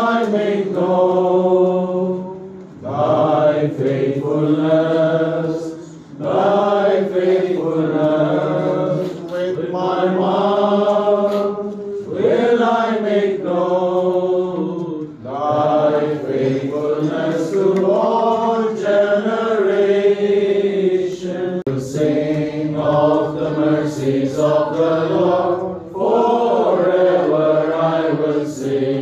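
A slow hymn sung in long, drawn-out phrases, with short breaks between lines.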